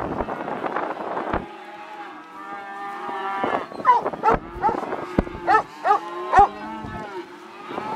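A mob of calves bawling, many calls overlapping, with several loud calls in the middle. The first second or so is a rough, noisy rush before the calling starts.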